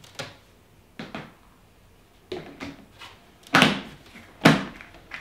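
Plastic lid being pressed down onto a plastic fermentation bucket, snapping into place around the rim in a series of about seven sharp clicks, the loudest two a little after halfway. Each snap is part of sealing the fermenter airtight.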